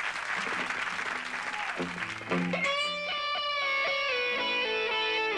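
Audience applause dying away as a rock band starts to play. A few low guitar notes come first, then about two seconds in electric guitar comes in loud, with held, sliding notes ringing on.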